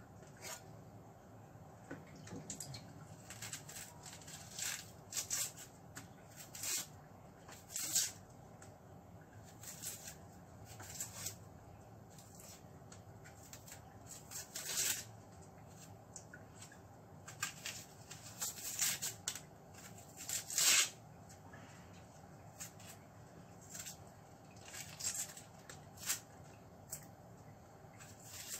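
Dry, papery onion skin being peeled and torn off a white onion with a small knife: irregular short scratches and crackles.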